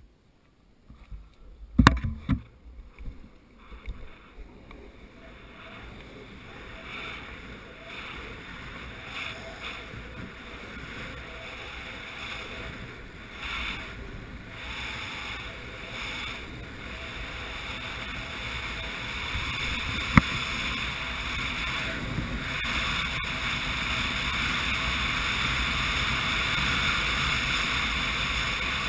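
Wind rushing over the microphone mixed with longboard wheels rolling on asphalt, growing steadily louder as the boards gather speed downhill. A few knocks near the start and a single sharp click about twenty seconds in.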